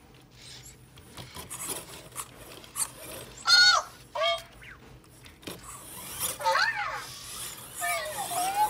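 ClicBot robot giving a string of short, cartoonish electronic chirps whose pitch slides up and down. The loudest is about three and a half seconds in, and a longer wavering call comes near the end.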